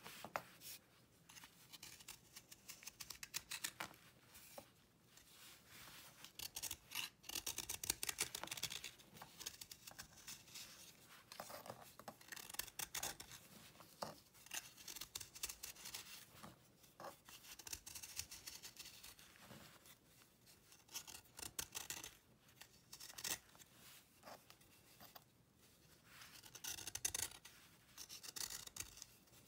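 Metal blade shaving a dried cake of cleaning paste: runs of quick, crisp scraping strokes, with brief pauses between runs as chalky flakes break away.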